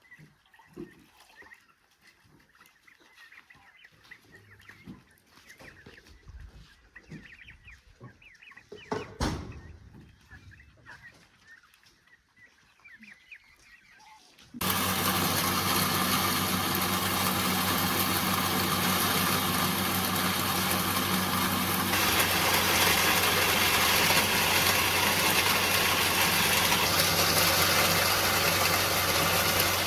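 Chickens clucking faintly, with a single sharp click near the middle of the quiet part. About halfway through, a motor-driven machine starts abruptly and runs with a steady hum, getting louder some seconds later.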